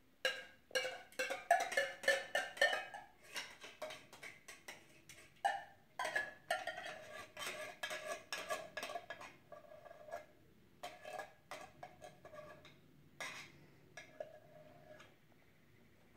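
Metal utensil scraping and clinking against the inside of a tin can as condensed soup is scooped out into a casserole dish: a run of quick, ringing clinks, densest at the start and coming again in bursts until near the end.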